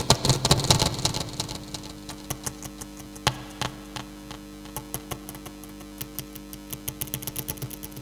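Rotary telephone dial turned and spinning back, its clicks picked up by a contact microphone soldered inside the phone. A dense rattle of clicks and scraping comes in the first second, then scattered clicks, then a quicker run of clicks near the end, all over a steady electrical hum.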